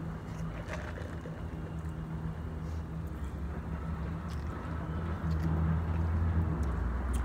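Low rumble of vehicle traffic with an engine's steady hum, growing louder in the last couple of seconds as a vehicle comes closer.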